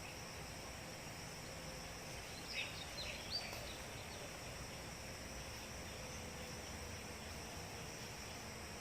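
Rural daytime ambience: a steady high insect drone over a low hiss, with a few short bird chirps about two and a half to three and a half seconds in.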